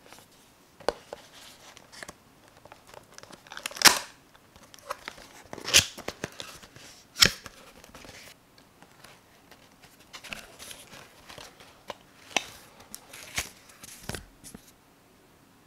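Hands handling and opening a cardboard retail box: scraping and tearing of the cardboard flap and tab, with several sharp snaps, then a paper leaflet rustling as it is pulled out near the end.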